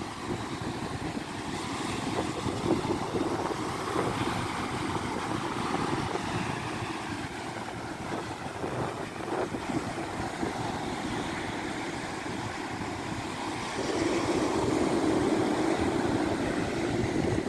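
Wind buffeting the microphone over the steady wash of ocean surf breaking on the beach, louder from about fourteen seconds in.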